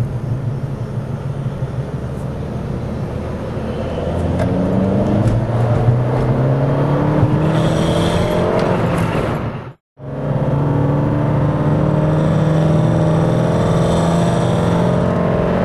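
2008 VW GTI MkV's turbocharged 2.0 TSI four-cylinder accelerating at full throttle in third gear, its engine note rising steadily. It breaks off briefly about ten seconds in, then a second pull follows, with a faint high whine near the top of each pull. The pull carries a weird noise that the owner cannot identify.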